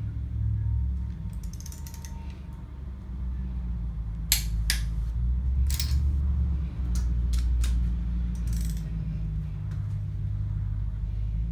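Torque wrench clicking as it tightens the nuts on cylinder head studs, in the middle 50 ft-lb pass of a three-stage torque sequence. There are a few sharp clicks about four seconds in and several more a few seconds later, over a steady low rumble.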